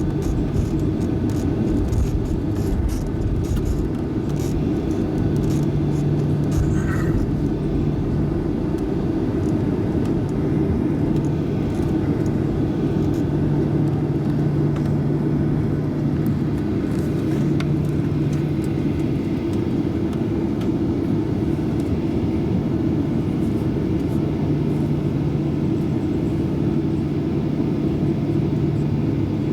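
Jet airliner taxiing: a steady drone and rumble of its engines at low power, with a constant low hum, heard from inside the cabin.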